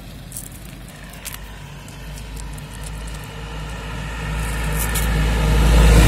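A motor vehicle's engine approaching along the road, a low hum getting steadily louder.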